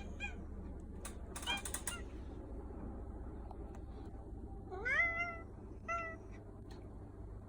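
Domestic cat meowing: a short meow at the start, a long, loud meow rising in pitch about five seconds in, and a shorter one a second later. A brief rattling noise comes about one and a half seconds in.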